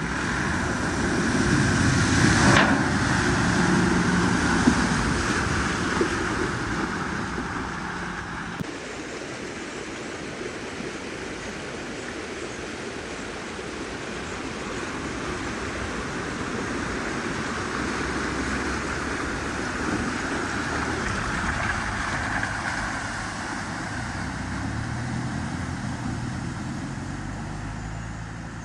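Vehicles driving through floodwater: engine noise mixed with rushing, splashing water. The sound changes abruptly about eight seconds in, and a low engine note comes up near the end.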